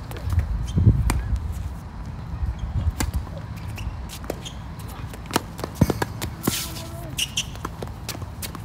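Tennis ball being struck by rackets and bouncing on a hard court during a rally, a serve then several sharp pops a second or so apart.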